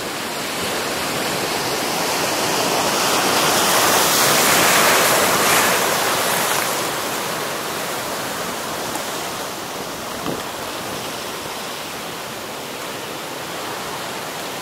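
Sea surf breaking and washing over shore rocks, a steady rushing that swells to a peak about four to six seconds in and then eases.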